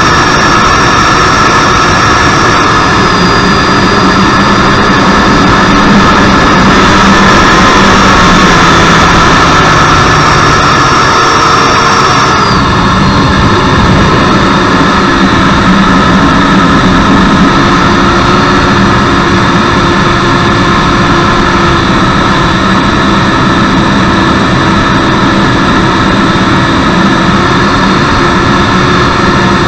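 The stock outrunner-driven 90mm electric ducted fan of a Freewing T-45 Goshawk foam RC jet, running loud and steady in flight, heard from inside the cockpit. Its whine steps down in pitch about 3 seconds in and again about 12 seconds in.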